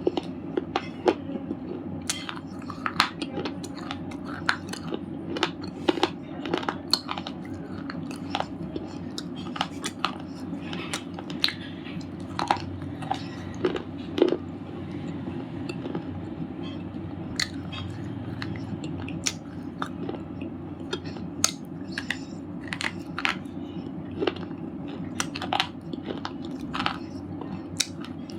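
Red slate chips being bitten and chewed close to the microphone: sharp, irregular crunches, one to three a second, over a steady low hum.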